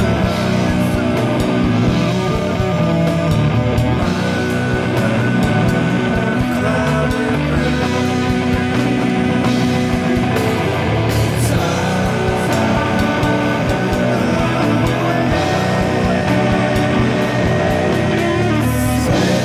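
Doom metal song: heavy electric guitars with bass and drums, playing loud and steady.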